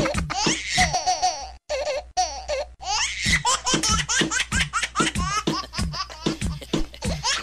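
Several people laughing hard over music with a steady beat.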